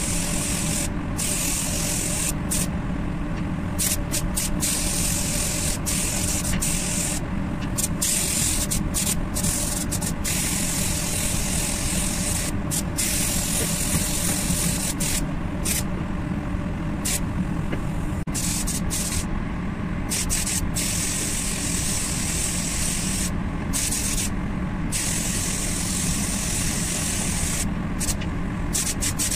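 Gravity-feed spray gun hissing as compressed air atomises base-coat paint. The hiss cuts out and restarts a dozen or so times at irregular intervals as the trigger is released and pulled again, over a steady low rumble.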